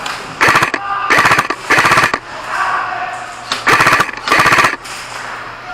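Airsoft M4-style electric gun firing short full-auto bursts with a fast, even rattle: three bursts in quick succession, then two more about a second and a half later.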